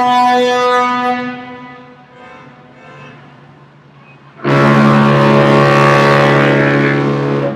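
Big ship's horn sounding: a blast dies away over the first couple of seconds, leaving a fading echo. A second, deeper blast starts suddenly about four and a half seconds in, holds a steady tone for about three seconds and cuts off near the end.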